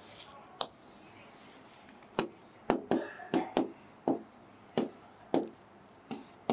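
Chalk writing numbers on a greenboard: a long scratchy stroke near the start, then a string of sharp taps and short scrapes, about two a second.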